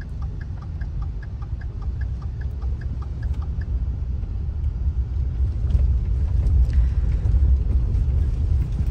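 Car driving on a rough road, heard from inside the cabin: a steady low rumble of engine and tyres that grows a little louder. A light regular ticking, about three a second, runs through the first three or so seconds, then fades.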